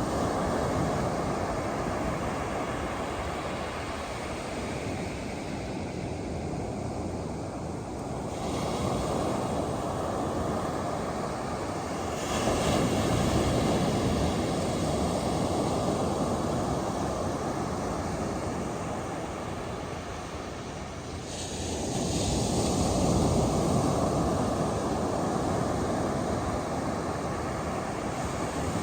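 Ocean surf on a beach: a steady wash of noise that swells as waves break, most strongly about 12 and 22 seconds in.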